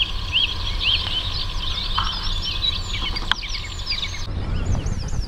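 Several wild birds singing at dawn, many short chirps and trills overlapping, one bird repeating a short arched chirp about twice a second at the start. A steady low rumble lies underneath.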